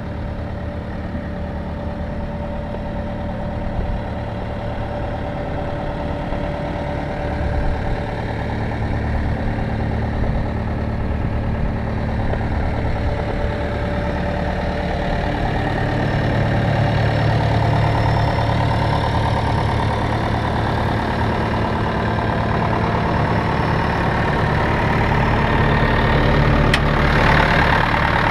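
Cat 236B3 skid steer's diesel engine idling steadily, growing gradually louder. A brighter, higher-pitched sound joins in near the end.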